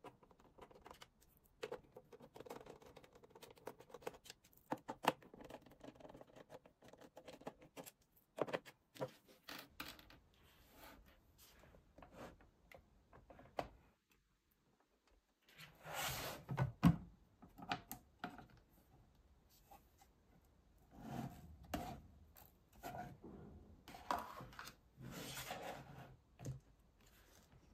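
Hands handling a plastic tablet casing: scattered clicks, taps and scrapes of plastic parts, with louder scraping stretches in the second half as the rear housing is lifted off.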